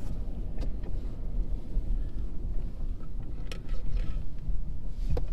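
Low, steady rumble of a 4x4 truck driving over snowy off-road trail, with wind buffeting the microphone. A few sharp knocks come through, one about half a second in, one in the middle and one near the end.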